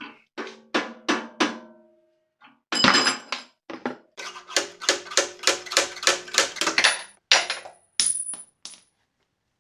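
A hammer striking metal repeatedly, each blow ringing briefly, as a drill chuck is knocked loose from the drill press spindle's taper. A few taps come first, then a heavy blow, then a fast run of about four taps a second, and a few last taps near the end.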